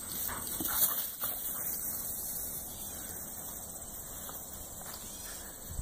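Puppies give a few short barks in the first second or so, then fall quiet. A steady high buzz of insects runs underneath.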